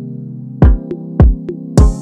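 Background electronic music: sustained synth chords, with a drum-machine beat coming in just over half a second in, a kick about every 0.6 s, and a cymbal hiss near the end.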